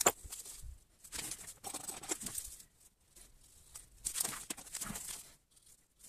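Work-gloved hands handling a plastic photocell light switch and its wires: irregular rustling and scraping, with a sharp click at the very start.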